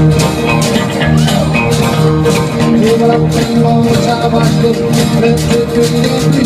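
Live band playing an instrumental stretch of an up-tempo song: guitar and bass notes over a steady, fast beat of sharp percussive strokes, with a washboard in the line-up.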